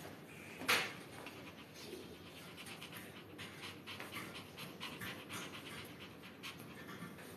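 Small Maltese dog panting rapidly, about three breaths a second, with one short louder sound under a second in.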